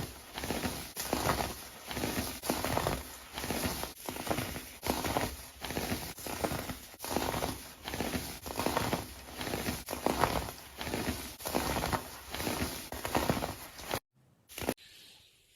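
Kinetic sand being crushed and crumbled by hand, giving a gritty crunch a little more often than once a second in an even rhythm. The crunches stop abruptly near the end.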